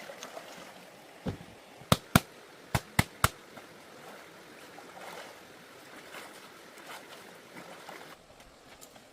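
Six sharp knocks in quick succession between about one and three and a half seconds in, over faint trickling water.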